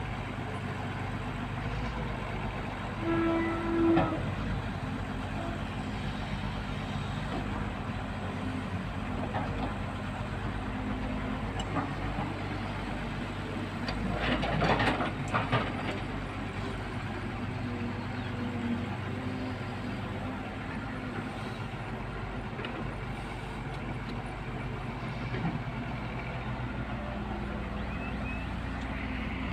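Diesel engine of a Tata Hitachi EX200LC excavator running steadily. A brief pitched tone comes about three seconds in, and a short burst of metallic clatter comes about halfway through.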